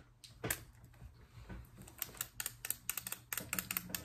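Wind-up clockwork toy chick running, its spring mechanism and hopping feet making a rapid clicking clatter, several clicks a second from about a second and a half in.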